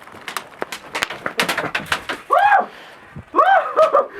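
A quick run of sharp airsoft gun shots in the first two seconds, followed by two loud wordless shouts from players, each rising and falling in pitch.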